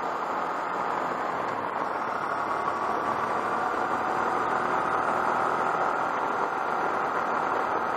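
Motorcycle riding along at a steady speed: a continuous rush of wind noise mixed with engine and tyre noise, even throughout.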